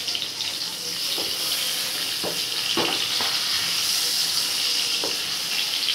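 Whole koi (climbing perch) sizzling as they fry in hot mustard oil in a kadai, a steady hiss. A few short knocks of a wooden spatula against the fish and pan come through as the fish are turned over.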